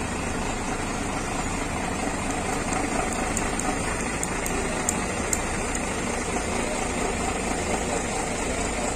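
Intercity bus's diesel engine idling steadily, left running so the bus doesn't get hot inside. A few faint ticks come in around the middle.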